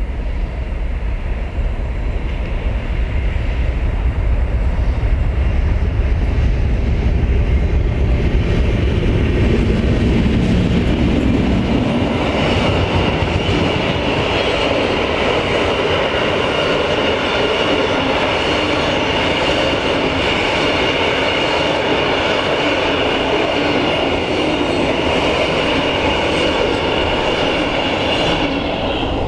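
Two Class 56 diesel locomotives, each with a Ruston-Paxman V16 engine, rumble deeply as they approach and pass, with a thin high whine that rises and cuts off about twelve seconds in. After that, loaded timber wagons roll by with steady wheel-on-rail noise and a thin, steady wheel squeal.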